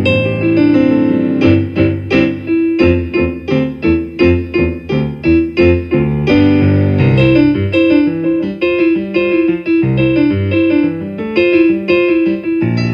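Piano playing a lively show-tune accompaniment. Sustained chords give way to short, punchy repeated chords, about two a second, in the middle of the passage.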